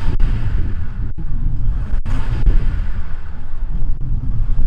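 Mercedes-Benz S350d diesel engine running with its stock exhaust sound, the active sound unit switched off: a low, even rumble.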